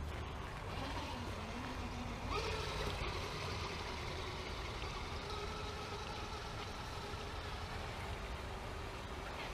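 Axial SCX10 II radio-controlled crawler's electric motor and gears whining as it drives through shallow creek water. The whine shifts and rises about two seconds in as the throttle changes, over a steady low rush.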